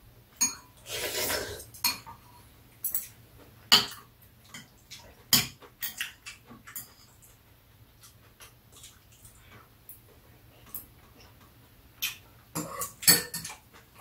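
Metal spoon and chopsticks clinking and scraping against ceramic bowls during a meal: scattered sharp clicks, a longer, louder noise about a second in, and a quick cluster of clinks near the end.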